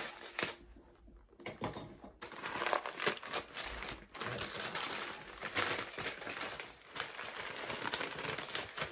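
Packaging being pulled open and crumpled by hand: a dense, irregular crinkling of wrapping that starts about two seconds in and keeps going.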